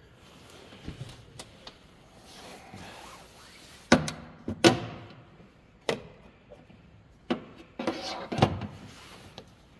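Several sharp knocks and clunks, some with a brief ring, from car parts and tools being handled during hands-on work on the car; the loudest come about four seconds in and again near the end.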